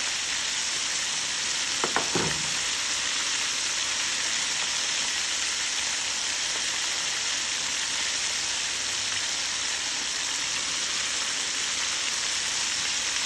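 Flour-coated chicken pieces frying in hot grease: a steady, even sizzle. A few quick clicks come about two seconds in.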